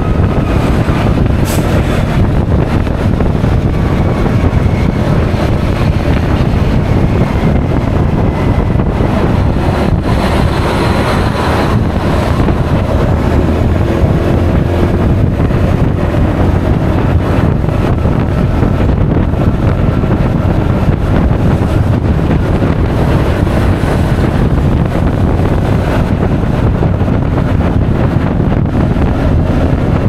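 Steady loud rush of wind on the microphone of a camera riding a Honda Forza 350 scooter at speed, mixed with the scooter's single-cylinder engine and road noise. A brief click about a second and a half in.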